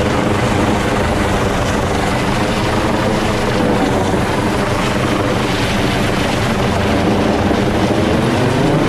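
US Coast Guard MH-65 Dolphin helicopter hovering close overhead, a loud steady rotor and turbine drone. Its pitch shifts slightly at the very end.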